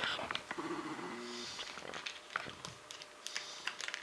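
Scattered small clicks and taps from fly-tying tools and materials being handled at the vise while a dubbing loop is set up.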